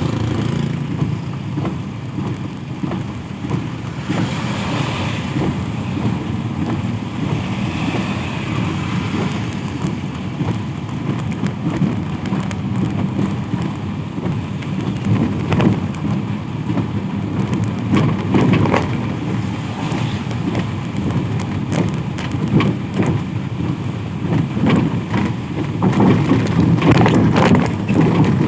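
Steady rain with the low rumble of traffic on a wet road. The pattering and crackle of the rain grow denser and louder near the end.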